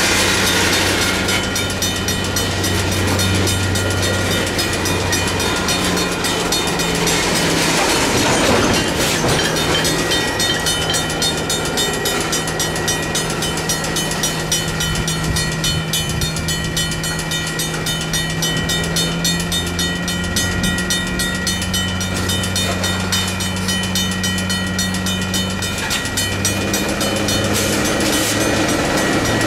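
Railroad crossing bells ringing: a mechanical bell striking rapidly and evenly, together with an electronic bell's steady tone. Under them runs the low steady drone of a diesel locomotive.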